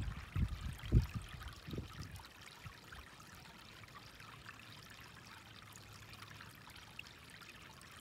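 Shallow stream water running thinly over a flat rock slab: a faint, steady trickling hiss. A few low, dull bumps in the first two seconds, the loudest about a second in.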